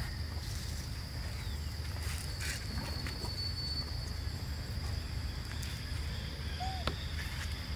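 Forest outdoor ambience: a steady high insect drone over a low rumble, with a short call and a click near the end.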